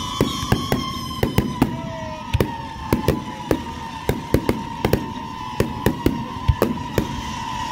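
Fireworks display: rapid, irregular bangs and pops of shells and comets going off, about four a second, with a steady tone sliding slowly down in pitch behind them.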